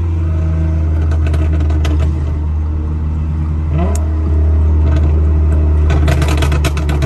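Car engine and exhaust droning steadily under way, with a quick rev about four seconds in and a dense burst of sharp exhaust pops and crackles near the end.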